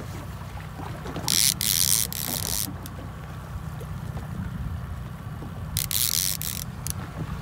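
Low steady rumble of a trolling boat's outboard motor with wind and water noise, broken by two short bursts of hiss, one about a second and a half in and one about six seconds in.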